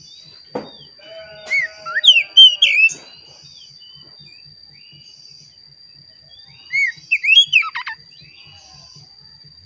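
Oriental magpie-robin (kacer) singing: two loud bursts of rapid, sliding whistled notes, one about a second and a half in and one about seven seconds in. A faint steady high tone runs underneath.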